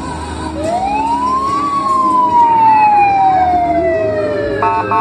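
Fire truck siren winding up to a peak, then winding down slowly. Just before the end, a rapid string of pulsing horn blasts begins.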